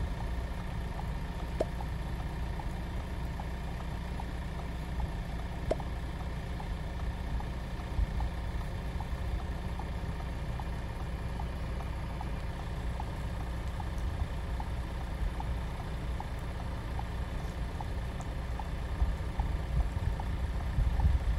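Car engine idling, a steady low rumble heard from inside the cabin. A faint, even ticking runs over it, about five ticks every four seconds.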